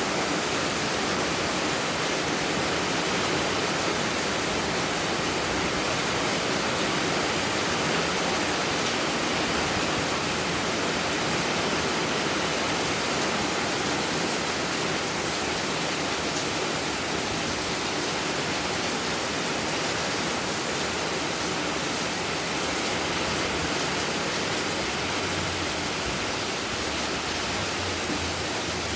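Heavy rain falling, a steady dense hiss with no let-up.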